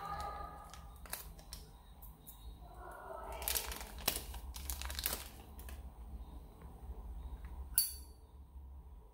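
Rustling and light handling clicks as vintage Zippo lighters are handled, with a single sharp click about eight seconds in.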